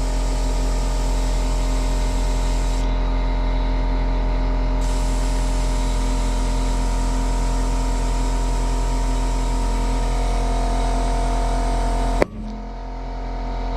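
Compressed air hissing steadily into a Polaris RZR Turbo UTV tire through the open valve stem. Near the end there is a single loud pop as the tire bead snaps onto the rim at about 35 psi, and the rushing air cuts away.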